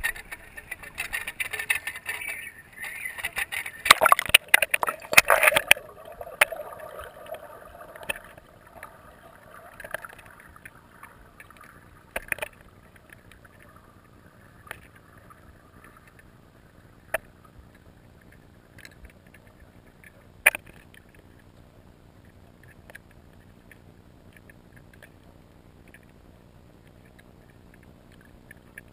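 Water splashing and knocking as a GoPro in its waterproof housing is dipped under the surface, loudest around four to six seconds in. Then a muffled underwater hush heard through the housing, with single sharp clicks and knocks every few seconds.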